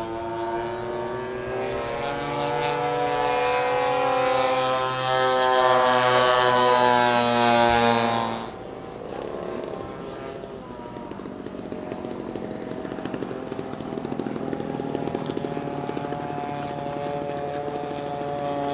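Large-scale radio-control warbird's piston engine. For the first eight seconds it runs at high power in a flyby, its pitch sliding as the plane passes. After a sudden cut it runs quieter and lower at low throttle as a plane lands and rolls out.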